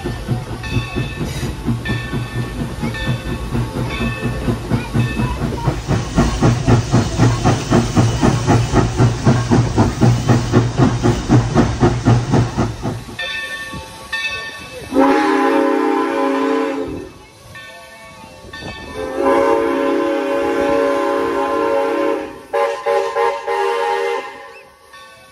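Steam locomotive No. 3025 working, its exhaust chuffing in a fast, even rhythm, about five beats a second, for roughly the first half. Then its steam whistle sounds three times: two long blasts and a shorter last one.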